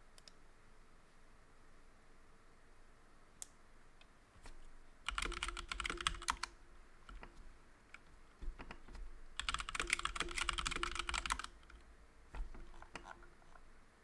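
Typing on a computer keyboard: two fast runs of key clicks, one about five seconds in and a longer one about nine seconds in, with a few single key presses between and after them.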